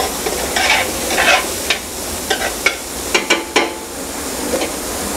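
Diced yellow onions sizzling as they sweat in melted butter in a large pot, stirred with a metal spoon that clicks and scrapes against the pot several times.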